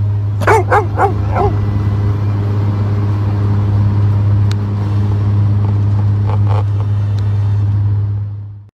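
Steady low drone of an airliner cabin in flight, with a dog giving four short high barks in quick succession about half a second in and two more later on.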